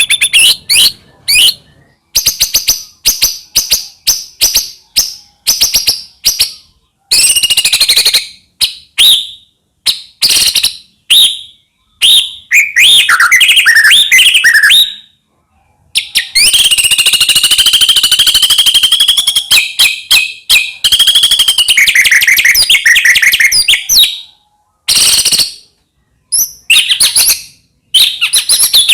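White-rumped shama singing a loud, varied song of rapid chips, trills and whistled phrases, broken by a few short pauses.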